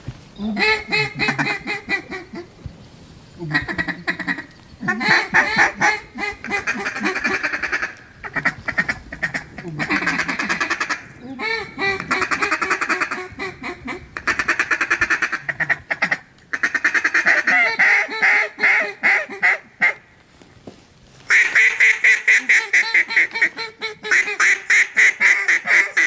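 Duck calls blown by hunters: run after run of fast quacks and chatter, each a second or two long with short pauses between.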